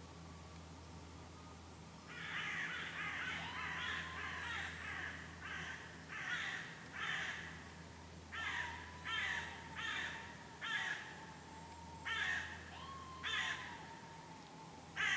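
Eurasian red squirrel giving harsh chattering alarm calls after a goshawk attack. The calls are a run of short rasping bursts that begin about two seconds in and repeat roughly once or twice a second.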